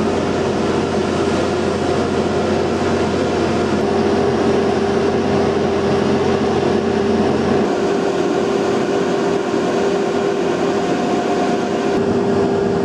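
Steady machinery noise of a cargo ship's heavy-lift deck cranes at work, with a constant mid-pitched tone. A deeper hum drops out about two-thirds of the way through.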